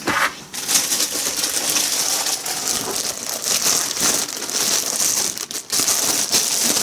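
Plastic bag crinkling and rustling continuously as a new PC power supply is handled and unwrapped.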